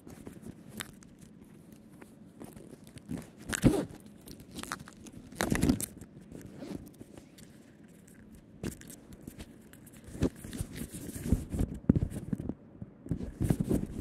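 Close handling noise: irregular rustling, scraping and knocking as the rider moves and handles gear on the stationary motorcycle. There are louder bursts about four and five and a half seconds in, and a busier cluster over the last few seconds.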